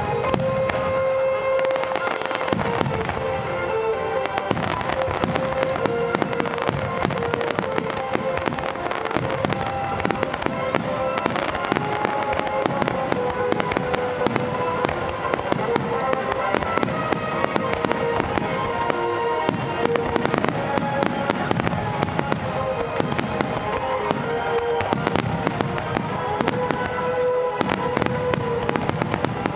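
A finale barrage of aerial firework shells bursting and crackling in a dense, unbroken volley, many reports a second, with music playing underneath.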